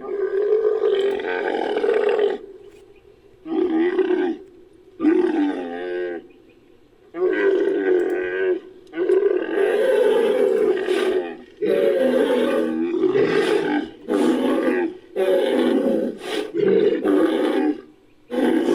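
Sound-designed Edaphosaurus creature calls, mixed from Edaphosaurus sound effects and camel, bull and walrus recordings: a run of about nine low calls, each one to three seconds long with short gaps between them. A few of the calls waver in pitch.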